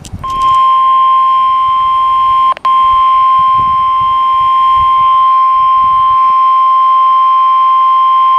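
NOAA Weather Radio's 1050 Hz warning alarm tone, sounded for the required weekly test: one loud, steady, unbroken tone, with a brief dropout about two and a half seconds in.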